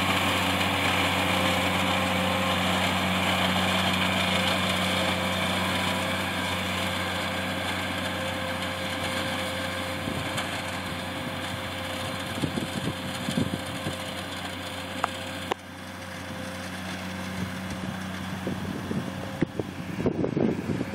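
Farm tractor's diesel engine running at a steady speed, slowly growing fainter over the first fifteen seconds. The sound drops off abruptly about two-thirds of the way through, and a few short knocks and rattles come near the end.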